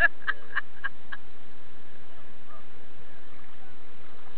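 An animal gives five short calls in quick succession within the first second or so, over a steady hiss of water.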